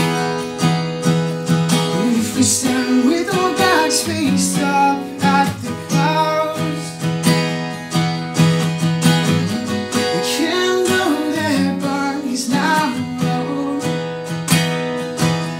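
Steel-string acoustic guitar strummed in a steady rhythm, with a man singing a melody over it in places.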